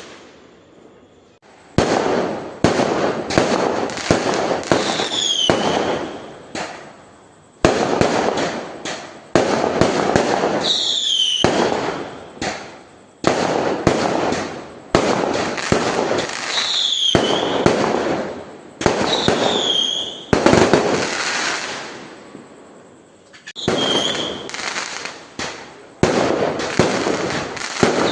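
Fireworks bursting one after another, more than a dozen sharp bangs, each trailing off in crackle. Short falling whistles sound between them, and there is a brief lull near the end.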